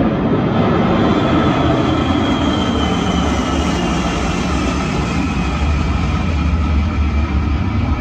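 Boeing 747 jet takeoff sound from a Dolby Atmos demo, played back loudly in the room through a Marantz Cinema 50 receiver and four Definitive Technology DN12 subwoofers. It is a steady jet-engine noise with heavy deep bass, and a faint falling whine comes a couple of seconds in.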